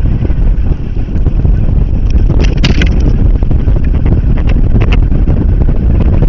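Strong wind buffeting the nest camera's microphone, a loud, steady rumble. A few sharp crackles and knocks come about two and a half seconds in and again near five seconds, as the eastern imperial eagle moves right against the camera.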